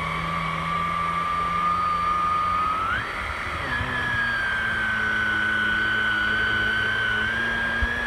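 Hoover ONEPWR Blade+ cordless stick vacuum running in carpet mode as its head is pushed over a fabric couch cushion: a steady motor whine over a low hum. About three seconds in, the whine steps up in pitch and then holds.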